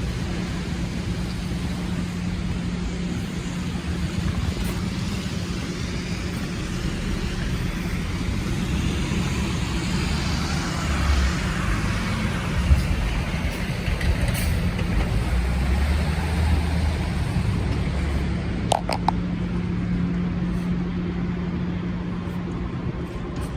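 City street traffic: motor vehicles running and passing, with a steady low hum. The traffic swells for a few seconds around the middle.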